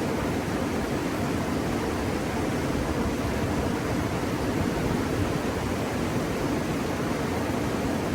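Steady rushing of river water, an even noise that holds level throughout.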